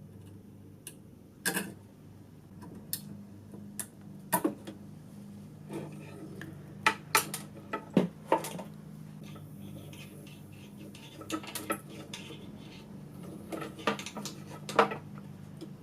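Irregular sharp metal clicks and clinks, some with a short ring: wire cutters and metal battery connector clips being handled as the clips are cut off an old power cord.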